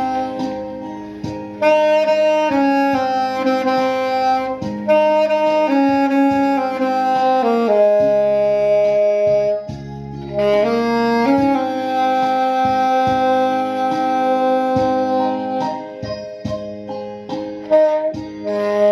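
Alto saxophone playing a slow ballad melody in long held notes, over a sustained accompaniment; the saxophone breaks off briefly about ten seconds in while the accompaniment continues.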